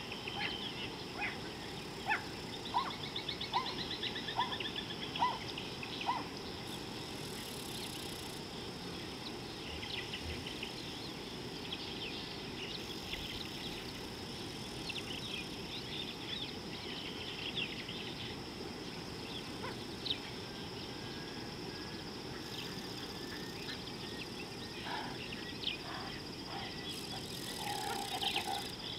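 Birds calling with many short chirps and notes over a steady high insect drone. A run of clear repeated notes falls in the first few seconds.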